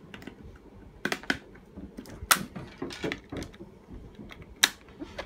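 Hard plastic clicks and taps from handling an Arai RX-7V helmet's clear visor and its side-pod pivot as the visor is fitted. There are a few sharp louder clicks among lighter, irregular ticks.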